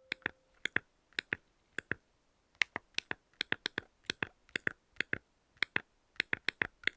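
Phone-keyboard typing sound effect: a string of quick, irregular taps, often in pairs, with short pauses between runs, as text messages are typed.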